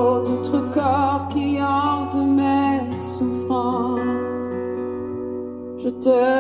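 A song played back through Aiwa Orb portable Bluetooth speakers: plucked guitar and a held bass note under a lead melody with vibrato.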